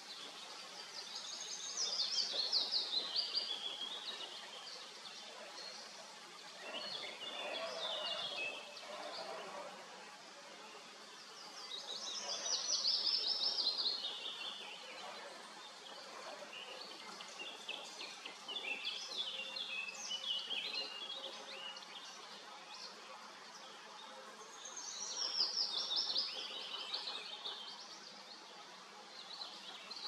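Songbird singing a fast trilled phrase that falls in pitch, three times about ten to twelve seconds apart, with other shorter bird calls in between. Beneath it runs a faint steady hum of honeybees at a hive entrance.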